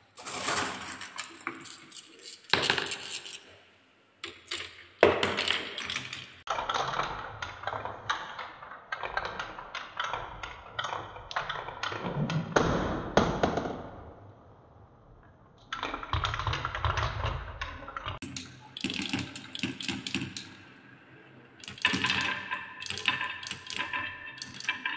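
Glass marbles rolling down wooden marble-run tracks, clicking and clattering densely against each other and the wooden spirals and grooved channels. The clattering comes in several stretches broken by short lulls, with a lower rolling rumble in one stretch past the middle.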